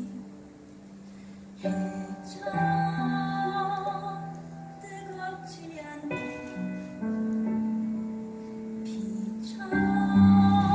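Live musical-theatre song: instrumental accompaniment under long, sustained melodic notes, with a female voice singing. It grows louder near the end.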